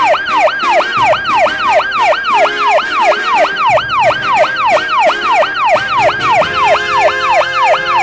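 Electronic fire alarm sound effect: a loud falling whoop tone repeating rapidly, about three times a second.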